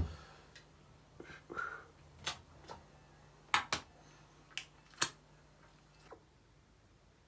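Tablespoon clinking and knocking lightly against glass jars while cream is spooned out, about ten scattered clicks.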